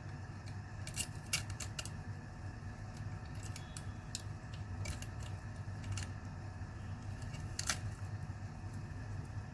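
Small, sharp clicks and taps of laptop parts and tools being handled, irregular and about ten in all, the loudest near the end, over a steady low hum.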